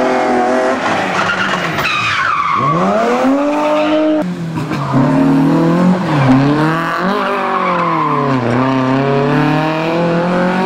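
Rally car engines revving hard through the gears, the pitch climbing and falling again and again as the drivers shift and lift. The sound changes abruptly about four seconds in, from one car to another.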